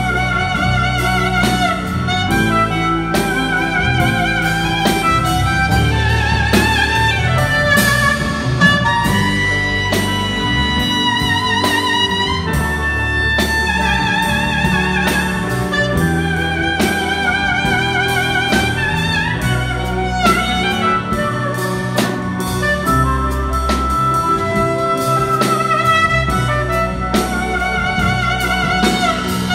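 Live jazz band playing: drum kit, electric bass, keyboard and electric guitar backing a horn that carries the melody with a wavering vibrato.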